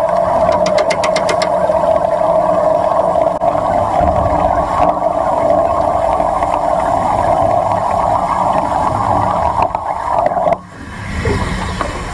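Steady noise of underwater welding, a loud even hiss-like din over a low rumble, that drops away sharply about ten and a half seconds in.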